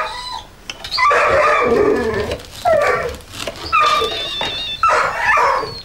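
A dog barking and whining in four loud bursts, each up to about a second and a half long.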